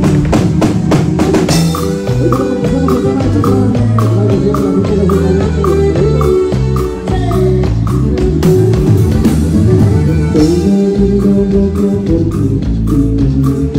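A live band playing dance music loud through a PA system. A drum kit keeps a steady beat under bass and guitar.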